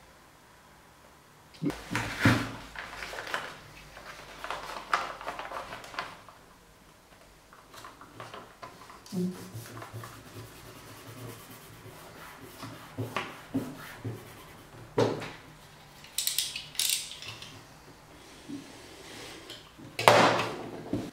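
Paper stencils and a wide roll of tape being handled on a wooden board: intermittent rustling, scraping and light knocks, with the tape pulled off the roll and pressed down. A louder rustling burst comes near the end.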